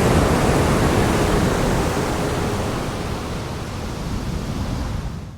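A steady rushing noise with faint sustained tones underneath that fade away about halfway through; the rushing eases down and then cuts off abruptly at the very end.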